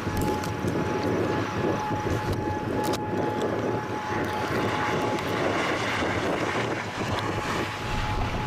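Strong severe-thunderstorm wind blowing steadily, a continuous rushing noise. A faint steady tone runs underneath and stops about halfway through.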